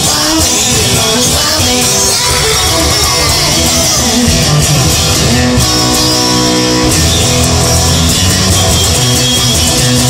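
Rock music with electric guitar, loud and steady.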